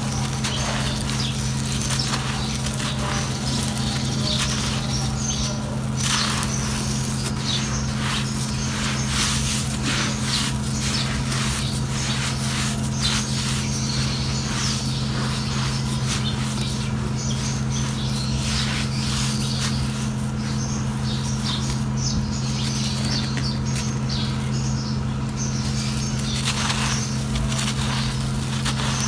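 Dry, gritty chunks of sand-and-cement floor mix being crushed and crumbled by hand: a dense run of sharp crunches and crackles as the chunks break and grit trickles down. A steady low hum runs underneath.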